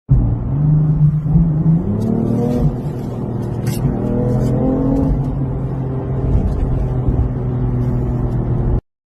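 A motor vehicle engine running, with its pitch rising as it revs up twice, about two seconds in and again about four seconds in, over a low rumble; it cuts off suddenly near the end.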